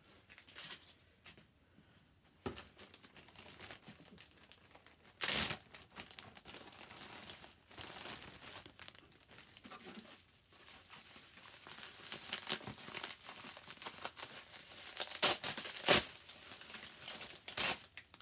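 Bubble wrap and plastic packaging crinkling as hands unwrap a plush toy, louder in the second half, with a few sharp crackles: one about five seconds in and several near the end.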